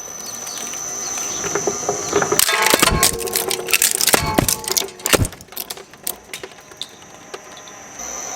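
Shredder running with a steady high whine, then about three seconds of dense cracking and snapping as material is torn apart in its cutters, tapering to scattered clicks; the whine returns near the end.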